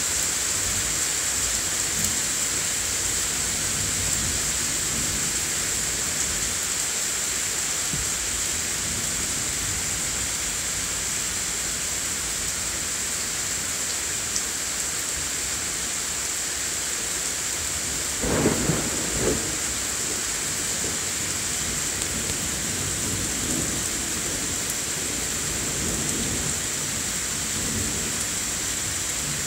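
Steady rain falling in a heavy thunderstorm, with thunder rumbling low throughout. About two thirds of the way through comes a louder clap of thunder, with a second, smaller one a moment later.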